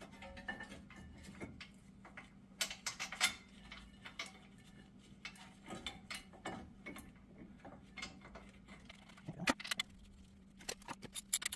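Light metallic clicks and clinks as front brake pads and their steel clips are handled and worked into the caliper bracket, in scattered irregular taps.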